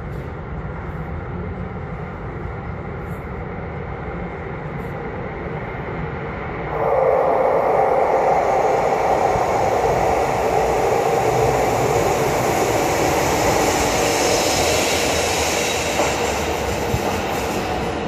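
Stadtbahnwagen B light-rail train approaching through the tunnel and running into an underground station: a low rumble that jumps much louder about seven seconds in, with a rising high-pitched hiss and wheel noise later as the train slows along the platform.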